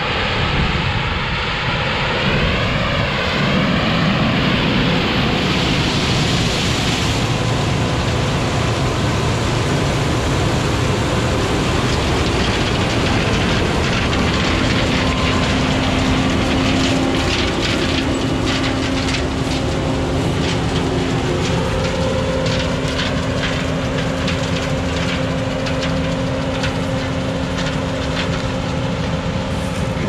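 Heavy farm vehicle's diesel engine running steadily under way. A wavering whine comes in the first few seconds, a steady hum settles in from about halfway, and a spell of rattling follows a little past the middle.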